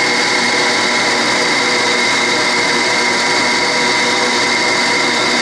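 Rockwell drill press running steadily at about 800 rpm, its motor and spindle drive giving an even mechanical hum with several steady tones.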